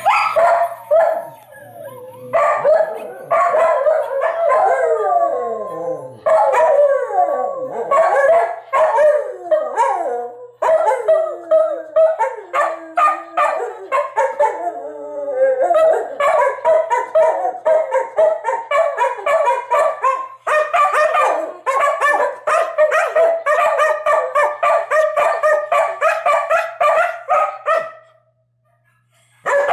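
Two American Eskimo dogs howling together, set off by a recording of their own howling. Over the first half come long wails that slide and fall in pitch; from about halfway they turn to quick, pulsing 'woo-woo' howl-barks, which break off shortly before the end.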